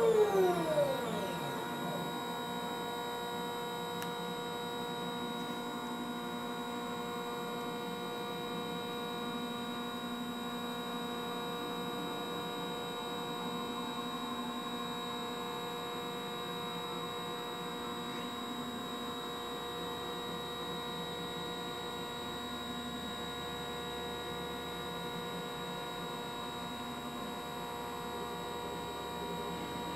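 Drive motors of a homemade GoTo controller on a 12-inch SkyWatcher Dobsonian telescope, slewing under motor control. A whine drops in pitch and fades within the first second, then a steady, even whine of several pitches holds while the telescope keeps moving in altitude.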